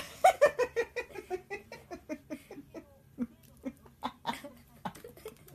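People laughing hard: a sudden burst of quick ha-ha-ha pulses that falls in pitch, then thinning out into scattered single laughs.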